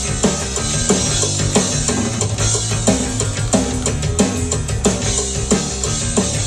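Punk rock with a steady drum beat, and an electric bass guitar plucked with the fingers, playing low notes along with it.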